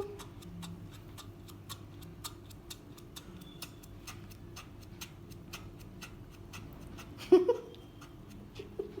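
Faint, regular ticking, about three or four ticks a second, like a clock. About seven seconds in comes one short, loud vocal sound from a small child, with its pitch gliding.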